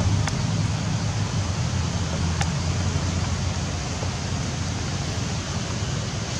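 Steady outdoor rushing noise with a low rumble that eases off slightly, and two faint ticks in the first few seconds.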